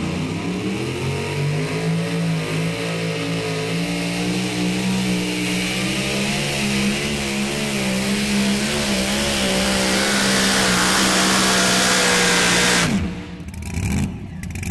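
Super Mod two-wheel-drive pulling truck's engine running at full throttle as it drags the weight-transfer sled, loud and steady with a slightly wavering pitch. About thirteen seconds in it cuts off suddenly as the pull ends.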